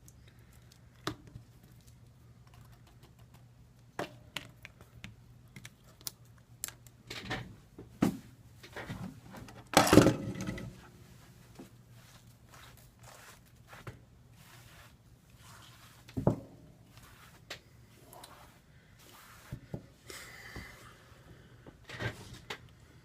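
Small hand tools clicking and tapping against a smartphone's frame and display while the cracked screen is worked loose, with a louder noisy burst about a second long near the middle, over a faint steady hum.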